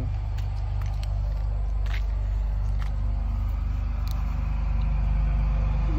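A motor vehicle engine running steadily with a low rumble, getting slightly louder toward the end, with a few faint clicks over it.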